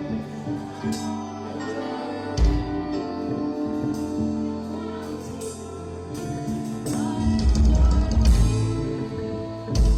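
Music: a song with singing over guitar and drums, with heavy bass hits about two and a half seconds in and again for a stretch near the end.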